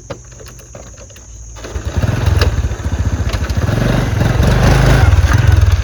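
Honda Wave 110's single-cylinder four-stroke engine starting after a few light clicks and running with rapid exhaust pulses. It gets somewhat louder toward the end.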